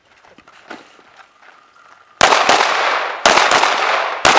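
Semi-automatic pistol shots fired in quick pairs, starting about two seconds in, each ringing out with a long echo.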